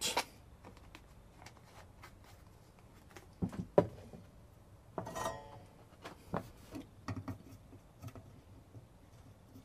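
Small clicks, taps and rustles of a circuit board and soldering tools being handled on a wooden workbench, with two sharper knocks a little before four seconds in.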